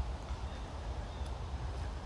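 Footsteps walking along a trail over a steady low rumble.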